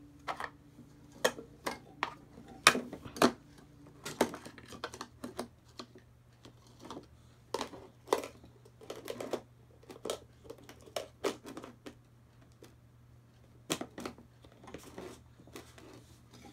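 Wire whisk clinking and scraping against a ceramic mixing bowl as a small child stirs batter, in irregular clicks and knocks, the loudest about three seconds in.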